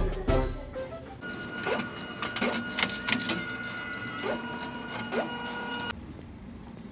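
Printer in a document-issuing machine running as it prints and feeds out a sheet of paper. It makes a steady whine with mechanical clicks and short rising motor sounds, and stops abruptly about six seconds in.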